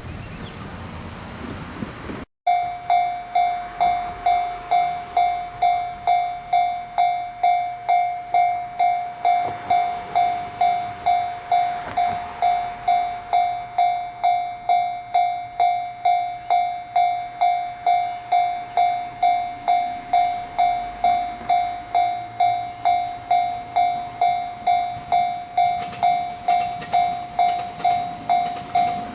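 Level-crossing warning bell ringing steadily, about two strikes a second, signalling that a train is approaching. It starts abruptly about two seconds in, after a short stretch of rushing noise.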